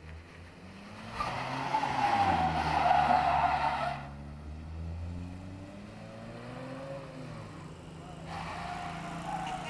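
Car drifting with its tyres squealing, the loudest stretch lasting about three seconds from a second in, then squealing again near the end. Under the squeal the engine revs rise and fall.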